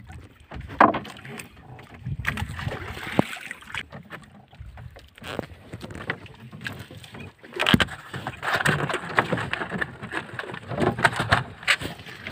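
Scattered knocks and bumps on a wooden fishing boat, over the noise of the sea around the hull.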